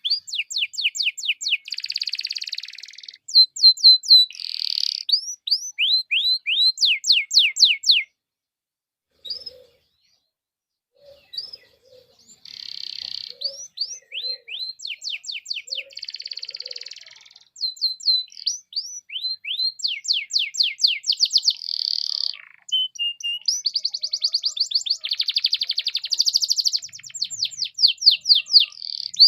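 Domestic canary singing long, fast trills of repeated falling notes mixed with buzzy rolls, with a break of a few seconds about eight seconds in before the song resumes.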